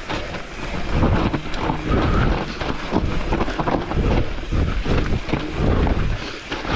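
A mountain bike being ridden fast downhill: wind buffeting the microphone over the rumble of tyres on rough trail, with frequent knocks and rattles from the bike over bumps.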